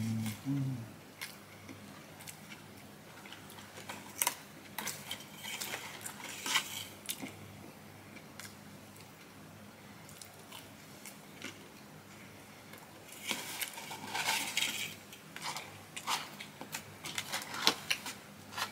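Fast-food packaging handled: a paper burger wrapper and a cardboard fry carton crinkling and rustling, with scattered small clicks and a busier stretch of rustling about two-thirds of the way through. A short hummed 'mm' at the very start.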